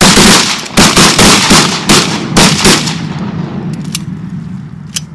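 A rapid volley of shotgun blasts from several hunters firing together at a flock of waterfowl: about eight loud shots in under three seconds, the echoes dying away after the last one.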